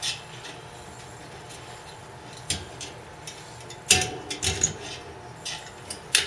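Scattered light metallic clicks and clinks from spoke-truing work on a bicycle wheel: a spoke wrench being fitted and turned on the spoke nipples. A cluster of clinks about four seconds in is the loudest.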